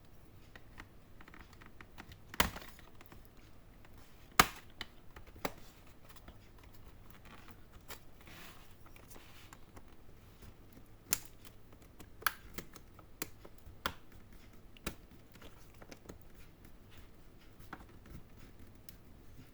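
Sharp plastic clicks and snaps as an HP 14s laptop's bottom case is pried open with an opening tool, the case clips letting go one at a time, about ten clicks spread irregularly, with a faint scraping in between.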